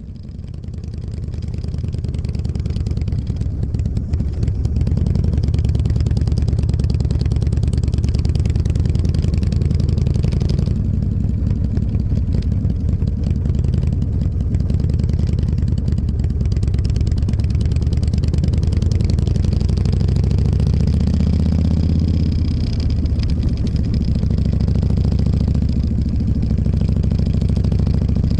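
Motorcycle engine running steadily under way, getting louder over the first few seconds as it picks up speed, with a brief rise in pitch about three quarters of the way through.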